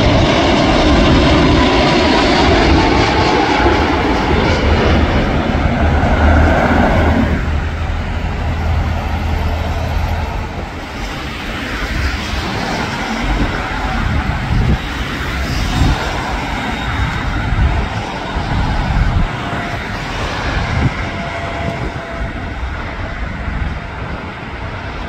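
Jet engines of a Boeing 787 airliner on landing approach, passing low overhead as a loud rush, its pitch falling as it goes by. About seven seconds in, the sound drops abruptly to the quieter, more distant rumble of an Airbus A330 airliner approaching.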